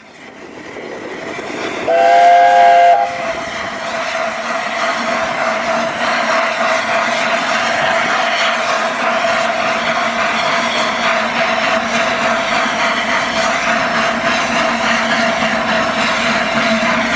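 LNER A4 Pacific No. 60009's chime whistle gives one short blast about two seconds in, the departure signal. Over it and after it comes a loud, steady hiss of steam being let off.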